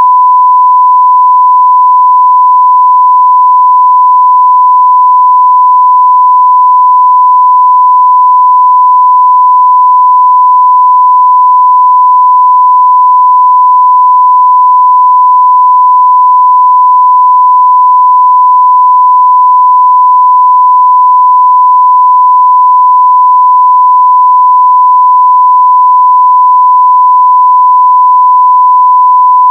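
A continuous 1 kHz sine-wave test tone at full level, perfectly steady in pitch and loudness.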